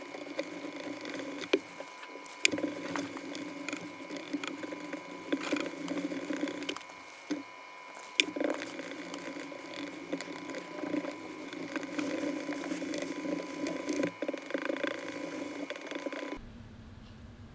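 Plastic spatula stirring liquid epoxy resin in a plastic mixing cup, scraping and clicking against the cup's sides, with a few sharp ticks. The stirring eases briefly about seven seconds in, then carries on until it cuts off sharply near the end.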